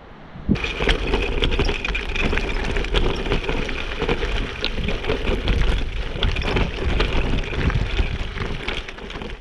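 Mountain bike riding over a rough gravel track: tyres crunching on loose stones with a steady rattle and clatter from the bike, starting abruptly about half a second in.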